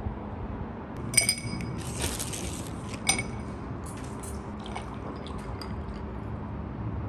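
A drinking glass clinks sharply twice with a ringing tone, about a second in and again about three seconds in, and orange juice is poured from a bottle into the glass.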